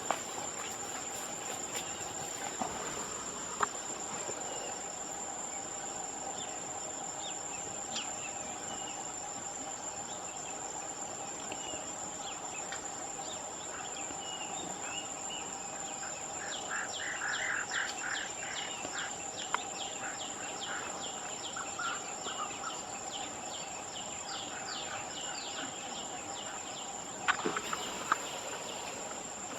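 Insects shrilling steadily at a high pitch, with a bird chirping in quick repeated notes about halfway through and a few short clicks.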